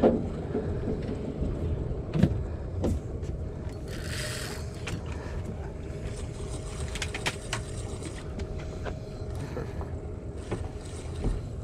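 Steady hum of a small motor on a fishing boat, with a faint steady tone running through it. A few light knocks come about two to three seconds in, and a brief hiss about four seconds in.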